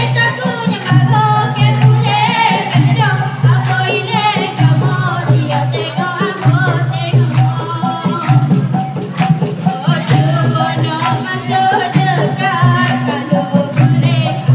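A girl's voice singing a dikir barat song through a microphone and PA, over a steady percussion beat with tambourine-like rattles.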